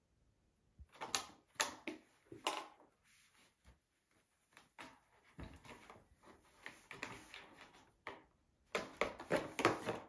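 Siberian kitten playing on its own: irregular scuffling, rustling and clattering, in a burst about a second in and a louder flurry near the end.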